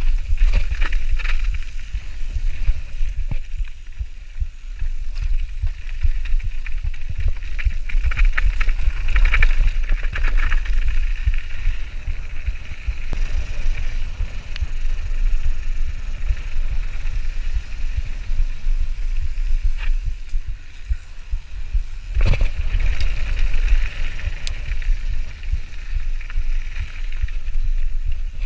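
Wind buffeting the microphone of an action camera on a mountain bike riding fast downhill, with a low rumble under the tyre and drivetrain noise from the trail. Scattered knocks and rattles come as the bike hits bumps, with a sharp one about 22 seconds in.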